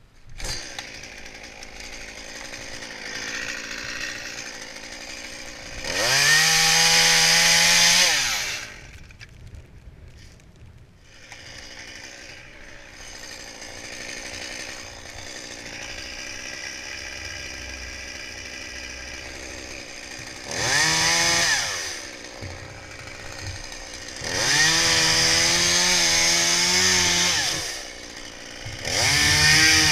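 Two-stroke chainsaw idling, then revved hard to full throttle four times, each burst a sharp rise in pitch held for one to three seconds before dropping back.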